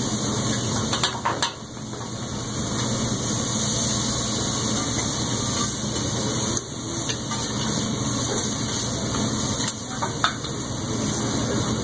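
Shrimp and steak sizzling steadily on a hot teppanyaki griddle, with a few sharp clicks of a metal spatula against the steel plate about a second in and again near the end.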